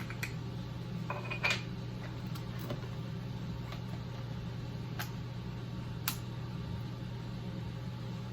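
A few scattered clicks and small taps of plastic caps and the 15–45 mm kit lens being handled and fitted onto a Canon EOS M50 camera body, the sharpest about a second and a half in and again near five and six seconds. Under them runs a steady low hum from an air conditioner.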